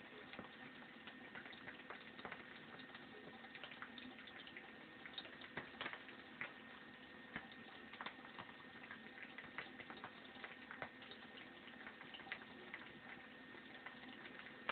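Near silence: a faint steady hum with scattered small ticks and rustles of hands working through hair.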